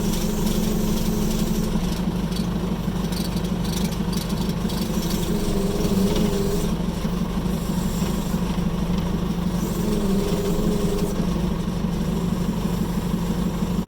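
Fiat-Allis 11-B crawler dozer's engine running steadily, with a wavering whine coming in twice, about six and ten seconds in.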